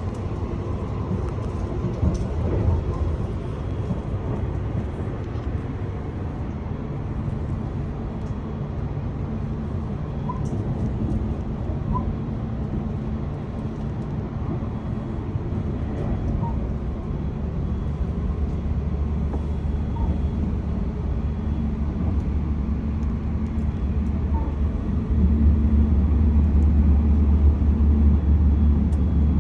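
Inside a Sunrise Express 285-series sleeper train car: the steady low rumble and hum of the train running on the rails, with a few faint ticks and rattles, growing louder near the end.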